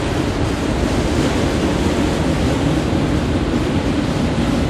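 Autorack freight cars rolling past, a steady rumble of steel wheels on rail.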